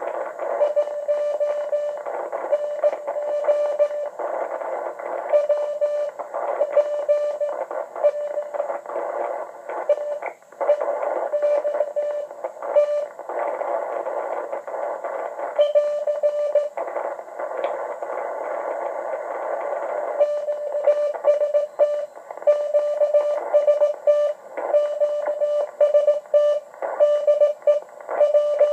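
Morse code (CW) from W1AW's code practice transmission on 40 metres, received on a Yaesu FT-950 transceiver: a single whistle-like tone keyed on and off in dots and dashes over a hiss of band noise. The hiss becomes lighter about two-thirds of the way through.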